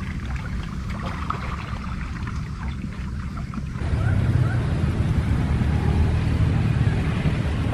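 Wind buffeting the microphone: a steady low rumble with a few faint clicks, growing louder and fuller about four seconds in.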